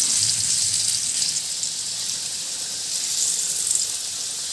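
Potato pieces shallow-frying in hot oil in a kadai, a steady sizzle. They are being fried until reddish-brown.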